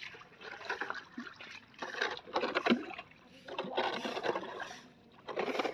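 Muddy water sloshing and splashing in a shallow roadside drainage ditch as a bamboo pole is worked through it to clear the channel, in about four bursts with short pauses between.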